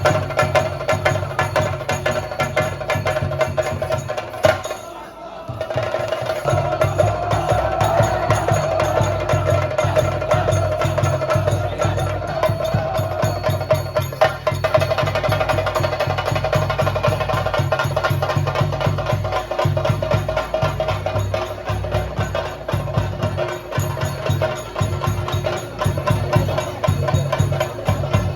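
Theyyam ritual percussion: rapid, continuous chenda drumming over a steady held high tone. The music briefly drops away about five seconds in, then resumes.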